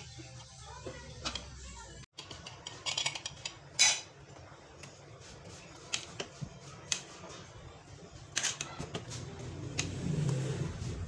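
Metal ladle clinking and scraping against an aluminium cooking pot as vegetables are pushed down into the soup broth. There are several sharp clinks, the loudest about four seconds in.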